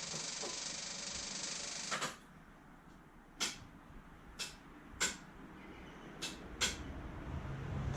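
A steady hiss that cuts off about two seconds in, followed by five short, sharp clicks at uneven intervals.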